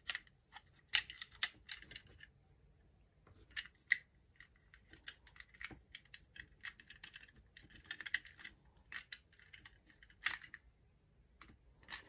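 Quiet, scattered small clicks and rustles of a plastic plug base and electrical cable being handled, as the red active wire is worked into the base's terminal.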